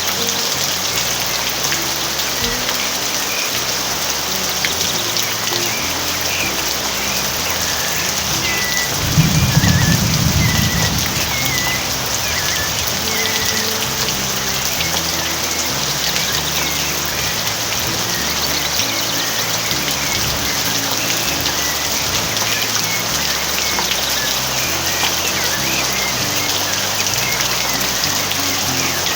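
Steady rain falling, with short bird chirps scattered through the first half. A louder low rumble lasts about two seconds, starting about nine seconds in.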